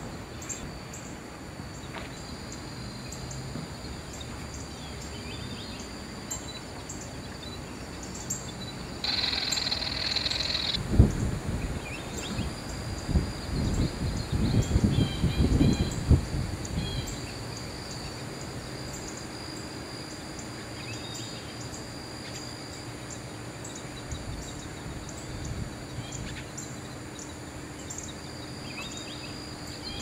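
Wetland ambience: insects keep up a steady high drone, which swells into a louder buzz for about two seconds about a third of the way in. Right after, several seconds of loud low rumbles and knocks.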